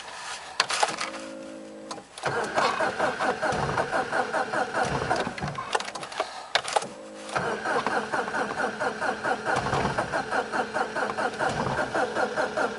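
VAZ-1116 Oka's starter cranking the engine in two long attempts, each a fast, even chugging, without the engine catching. Each attempt is preceded by a short steady tone. The failure to start is put down by the owner to a weak battery or an empty fuel tank.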